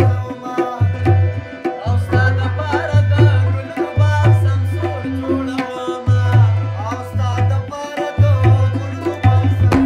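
Pashto music on tabla and harmonium: fast tabla strokes over deep, ringing bass-drum booms, the harmonium holding chords, and a man singing over them.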